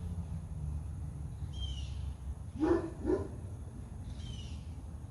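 A dog barks twice in quick succession, about half a second apart, midway through. A bird gives a short high chirp twice, once before the barks and once near the end, over a steady low hum.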